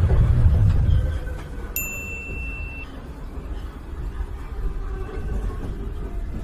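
Low, steady rumble of a metro train car running, louder in the first second. About two seconds in, a short high electronic beep sounds for about a second.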